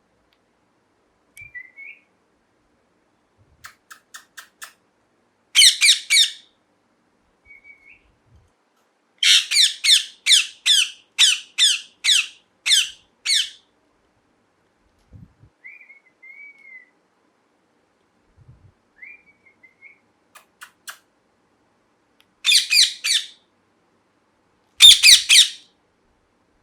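Ringneck parrot screeching in loud, harsh bursts: a short run of three calls, then a long series of about nine calls at roughly two a second, and two more bursts near the end. Soft, short whistles come between the bursts.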